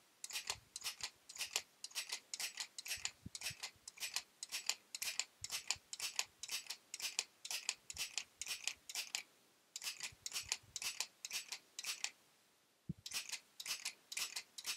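Spring Come mini stapler sewing machine, squeezed by hand and released stroke after stroke as it chain-stitches through fabric, giving a sharp click at each stroke, about three clicks a second, with two short pauses in the later part.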